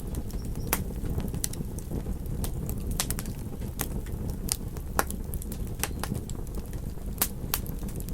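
Wood fire crackling: frequent sharp pops and snaps at irregular intervals over a steady low rumble, with a couple of louder pops.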